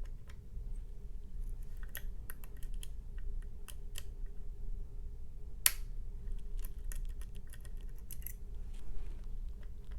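Small, scattered metallic clicks of a dimple pick working the pins of a Mul-T-Lock MT5+ lock under tension, with one sharper click about halfway through. A faint steady low hum sits underneath.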